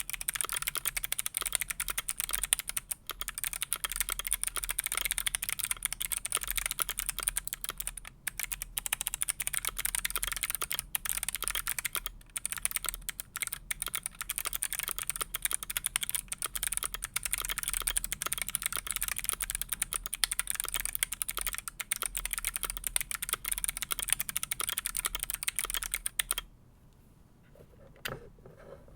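Continuous fast typing on a Keychron Q6 mechanical keyboard with Kailh Box Navy clicky switches: a dense, loud run of sharp clicks that stops shortly before the end, followed by a couple of lone clicks.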